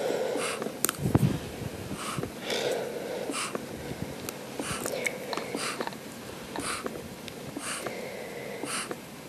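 Manual resuscitation (AMBU) bag being squeezed by hand about once a second, each squeeze giving a short puff of air through its valve into an endotracheal tube: manual ventilation of an intubated infant.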